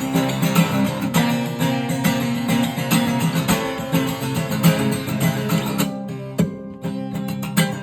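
Acoustic guitar strummed in a steady rhythm as an instrumental passage between sung verses. It thins out and goes briefly quieter about six seconds in, then picks up again.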